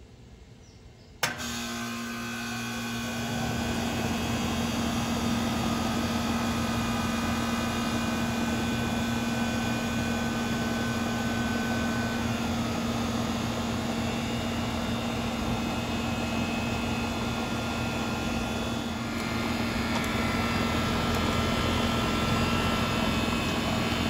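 2019 two-ton Goodman GSX14 air-conditioner condenser kicking on about a second in with a sharp click. Its Bristol Benchmark reciprocating compressor starts, with a steady hum, while the condenser fan spins up over the next couple of seconds, and then both run steadily.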